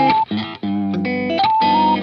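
Background music: an electric guitar tune with a plucked melody over chords.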